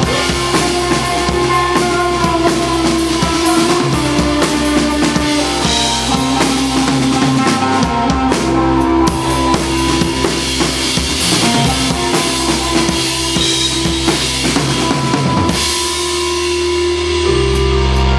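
A band playing rock music live, the drum kit beating busily with bass drum and snare over held instrument notes. About sixteen seconds in the drums thin out and low held notes take over.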